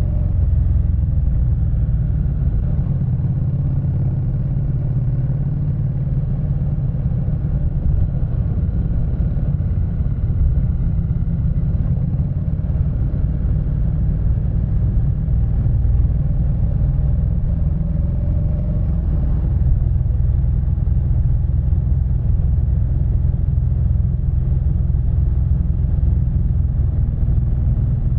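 Honda NC700X parallel-twin motorcycle engine running steadily while riding, heard through a bike-mounted camera under a heavy, steady low rumble.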